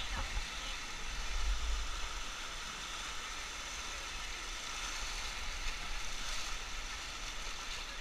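Whitewater river rapids rushing past a raft at water level: a steady hiss of churning water with a low rumble beneath.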